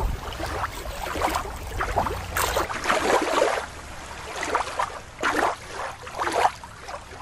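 Water lapping and sloshing at the edge, coming in uneven surges.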